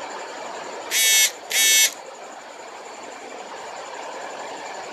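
Steady machinery noise with two short, high-pitched electronic buzzes about a second in, half a second apart.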